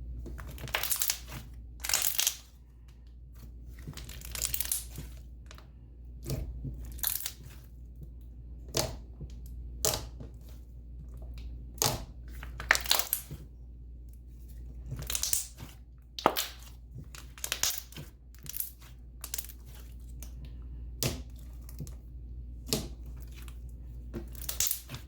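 Thick slime with pom-poms worked by hand, giving irregular sharp crackling pops and squishes about once a second as it is pressed and stretched.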